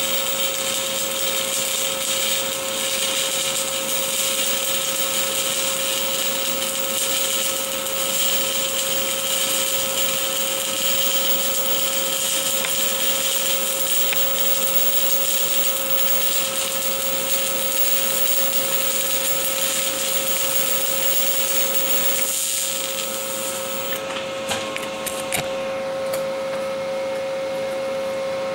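Stick-welding arc on stainless steel crackling and hissing steadily as the electrode burns during a vertical-up cover pass, over a steady hum. The arc breaks off near the end, leaving the hum and a few ticks.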